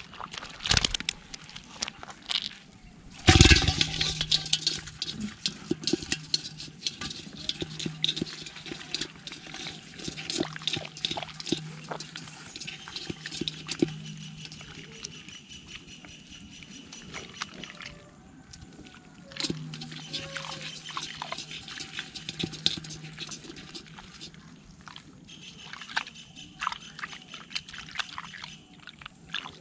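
A hand splashing and stirring muddy, soapy water in a small hole in the ground: wet sloshing with many small clicks and slaps, loudest about three seconds in.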